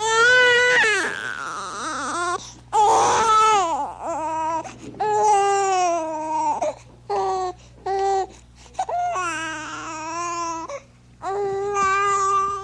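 Baby crying: a string of high wailing cries with short gaps for breath between them. The first cry is long and loud, and the later ones are shorter and often fall in pitch at their ends.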